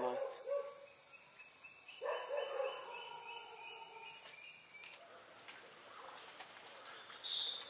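Crickets' steady, pulsing high trill, which stops suddenly about five seconds in. After that there is fainter outdoor ambience with one brief high chirp near the end.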